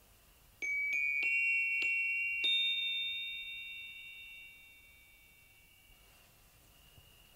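A short music cue of five bright, bell-like chime notes struck in quick succession, each a little higher than the one before. They ring on together and fade out over a few seconds.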